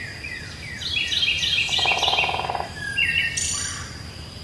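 Birds chirping in quick runs of short falling notes, with a short buzzy trill about two seconds in and a thin steady high tone underneath.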